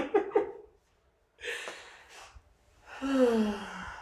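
A person's sharp, breathy intake of breath about a second and a half in, then a long voiced sigh falling in pitch near the end, from a patient during a chiropractic adjustment.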